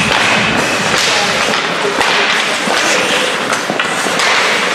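Ice hockey play: skates scraping and carving the ice and sticks clacking as the puck is played from a faceoff, with a sharp stick or puck knock about two seconds in, echoing in the rink.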